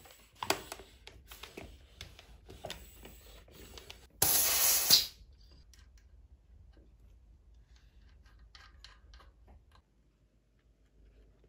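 Clicks of a floor pump head being handled on a bicycle tyre valve, then a loud hiss of escaping air about four seconds in, lasting about a second, as the pump head is released from the valve. Faint small ticks follow.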